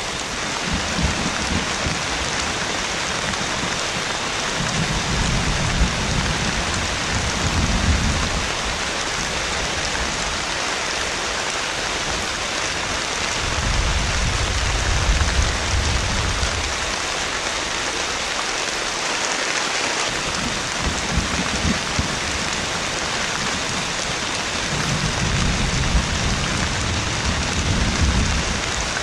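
Heavy rain falling in a steady hiss, with several low rolls of thunder rumbling in and fading away over a few seconds each.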